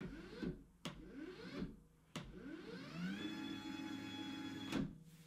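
Electric sit-stand desk's lift motor whirring in two short runs that each rise in pitch and fall away, then a longer run that climbs to a steady whine and stops with a click near the end.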